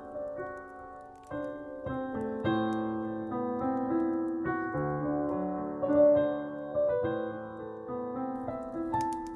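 Solo piano playing a slow, nostalgic melody, note after note with chords ringing out. A few faint fireplace crackles sound near the end.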